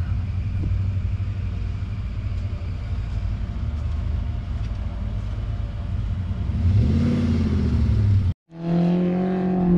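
Off-road 4x4 engine running steadily, then revving up about seven seconds in. After a brief dropout, an engine holds a higher, steady pitch.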